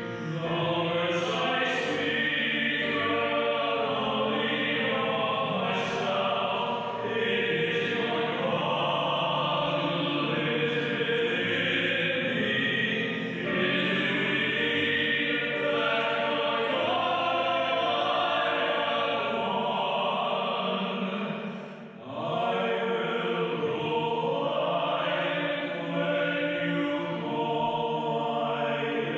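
A male cantor singing a slow hymn into a microphone, with a brief break between phrases about three-quarters of the way through.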